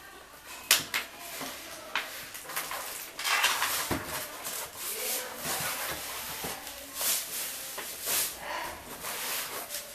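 Plastic wrap rustling on a flat-screen TV, with polystyrene foam packing blocks squeaking, scraping and knocking on a tiled floor as the TV is handled and set down on them. The rustling goes in uneven bursts with scattered sharp clicks and a heavier knock a few seconds in.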